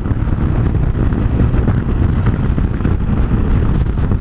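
Motorcycle being ridden at steady speed, its engine running under a heavy, even rumble of wind and road noise on the rider's microphone.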